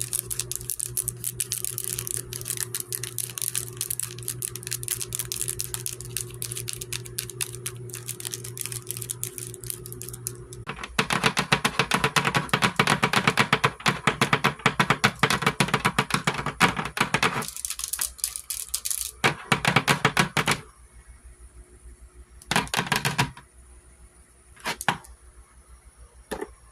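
Fingernails tapping and clicking in a fast, dense run of clicks, over a low steady hum. About eleven seconds in the clicking gets louder for some six seconds, then breaks into short bursts separated by pauses.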